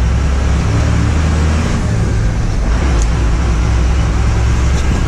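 Tata tipper truck's diesel engine running steadily while the truck drives along, heard from inside the cab as a low engine hum over an even haze of road and cab noise.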